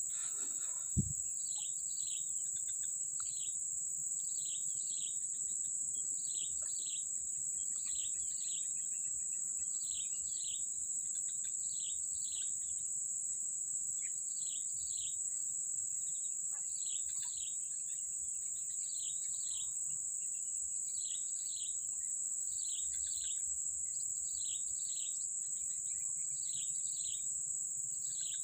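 Swamp ambience: a steady, high-pitched insect drone with a bird repeating a short, falling two-note call about once a second. A single brief thump sounds about a second in.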